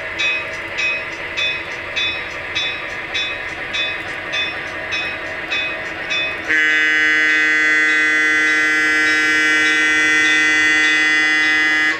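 Sound system of an MTH HO-scale Milwaukee Road Little Joe electric locomotive. Regular clicking, a little under two a second, runs over a steady hum. About halfway through, a loud multi-tone air horn sounds and is held for over five seconds, then cuts off sharply.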